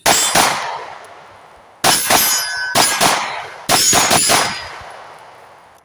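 Stealth Arms Platypus 9mm pistol fired in quick pairs and triples, about nine shots in four groups, each group trailing off in a long echo.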